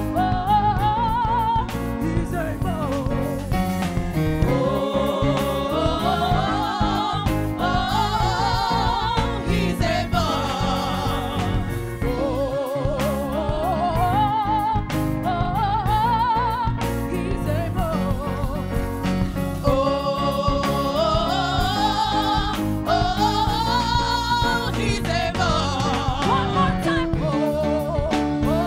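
Gospel choir and lead singers singing a worship song into microphones, with wavering, sliding melody lines over steady instrumental backing.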